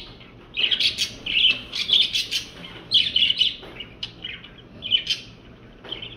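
Birds chirping in short, loud, scratchy bursts, about one every second.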